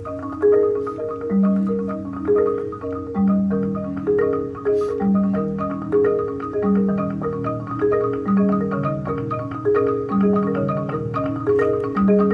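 A marimba ensemble playing a rhythmic, repeating pattern: quick mallet strokes in the middle range over a low, ringing note that returns about every one and a half seconds.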